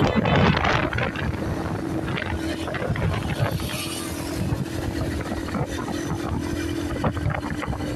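Motorcycle riding along a road: the engine runs with a steady hum under constant road and wind noise.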